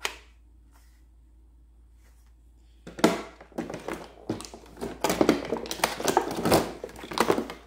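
A single plastic click, then about three seconds in the clattering and crinkling of hard plastic: a plastic toy blaster being set down and hands rummaging through its clear plastic packaging tray for the accessory parts.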